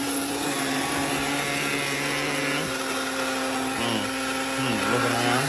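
Electric coffee grinder running, grinding coffee beans: a steady motor whine whose pitch dips briefly a couple of times near the end.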